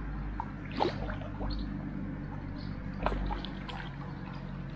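Water splashing as a hooked Prussian carp is played in at the surface, with two sharper splashes about one and three seconds in, over a steady low drone.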